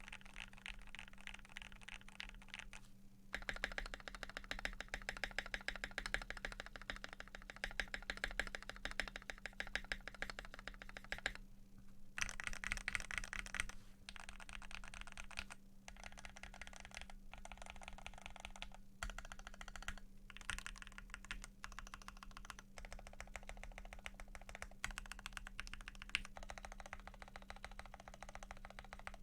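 Continuous fast typing on a Keychron Q1 gasket-mount mechanical keyboard with lubed Gateron Pro Yellow linear switches and PBT keycaps: a dense stream of key clacks in runs, broken by brief pauses, over a faint steady hum.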